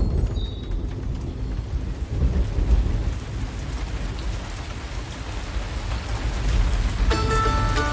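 Steady rain with low rolling thunder that swells and fades, with a couple of short bird chirps at the very start. Near the end, plucked and bowed strings come in over the rain as the music starts.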